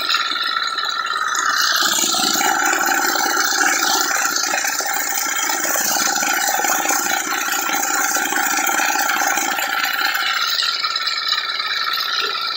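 Two-wheel tractor with a sickle-bar mower running steadily under way, its small engine's steady note mixed with a rattling clatter from the machine.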